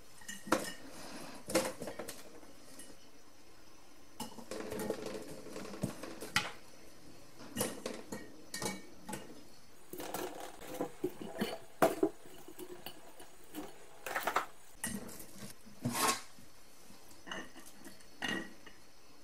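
Cut vegetable pieces dropped and pushed by hand into a large 5-litre glass jar: irregular knocks and clinks against the glass.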